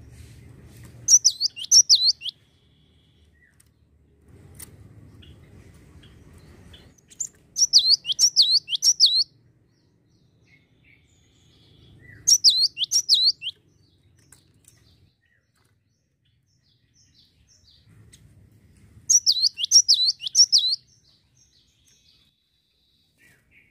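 Cinereous tit singing. Four bursts of quick, high whistled notes, each note sweeping downward, come several seconds apart with quiet gaps between.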